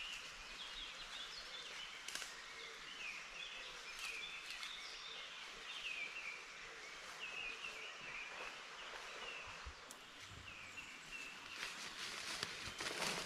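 Woodland birdsong: several birds twittering in short, repeated phrases over a steady background hiss, with a rustle of leaves and plants near the end.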